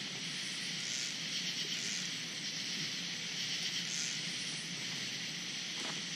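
Steady high hiss of a night insect chorus, with a few soft swells in pitch and level.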